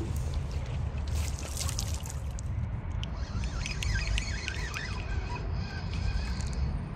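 Water splashing and trickling as a landing net on a long pole is moved in the fast river current, over a steady low rumble. A few faint high squeaks come about halfway through.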